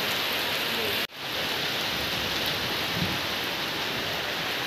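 Heavy rain pouring down onto a wet street, a steady even hiss that drops out for an instant about a second in.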